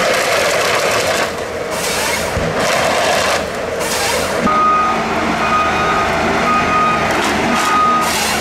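Eco Log 560F wheeled harvester running under load, engine and hydraulics working, with a few loud rushes of noise as the head handles the stem. From about halfway through, its reverse warning alarm beeps about once a second, four times.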